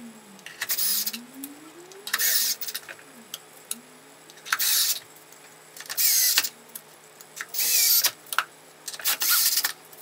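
Cordless drill with a Phillips bit driving screws into a golf buggy's plastic cowling, in six short bursts of about half a second each, roughly every one and a half seconds.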